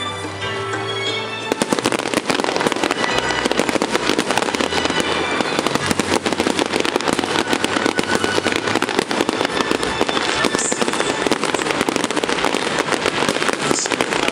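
Fireworks going off in a rapid, continuous barrage of bangs and crackles, starting about a second and a half in, with festival show music playing under it.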